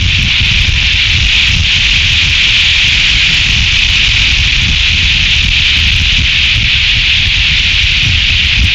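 High wind buffeting an outdoor eagle nest-camera microphone: a gusting low rumble under a steady hiss.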